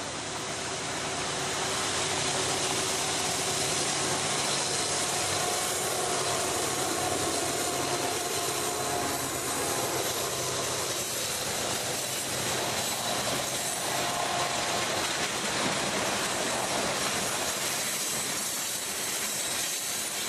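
BNSF coal train passing close by. The noise climbs over the first couple of seconds as the lead locomotive reaches the spot, then holds as a steady rush of wheels on rail while the coal hopper cars roll past.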